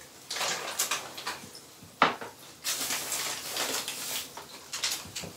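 Crinkling and rustling of a foil-lined insulated shipping bag and plastic fish bags as hands rummage inside a cardboard box, with a sharp knock about two seconds in.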